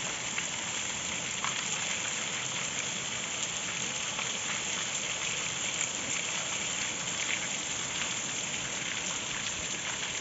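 Steady light rain falling on wet pavement: an even hiss with small scattered drop hits.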